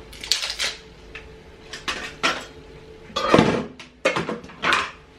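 Kitchen clatter in several short bursts, dishes and utensils being handled and knocked together. The loudest knock comes about three seconds in.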